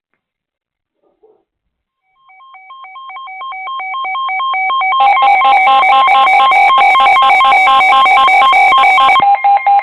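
Several NOAA weather alert radios sounding their alarms together: rapid electronic beeping in several pitches that begins about two seconds in and keeps growing louder, thickening about five seconds in. The alarms are set off by a severe thunderstorm warning.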